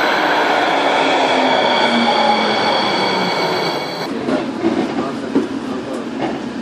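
NJ Transit light rail car pulling in alongside the platform and slowing, a steady high whine over its running noise, with a lower tone that slides down in pitch as it slows. About four seconds in the whine cuts off and gives way to quieter, irregular knocks and clatter.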